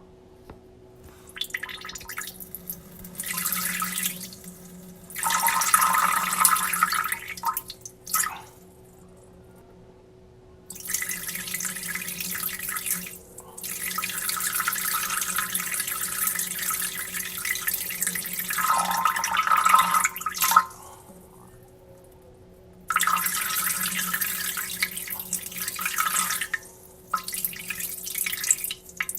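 A person urinating: a hissing stream of liquid that stops and starts about seven times, with pauses of up to about two seconds, the longest flow lasting about seven seconds.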